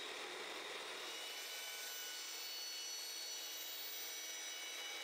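Evolution EVOMAX metal-cutting chop saw cutting through steel stock with its carbide-tipped blade: a steady, even cutting sound.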